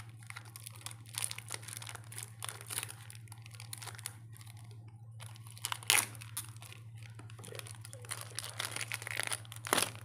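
Foil wrapper of a Free Fire trading-card pack crinkling and tearing as hands rip it open and pull out the cards, a steady stream of crackles with two loud sharp tears, one about six seconds in and one near the end.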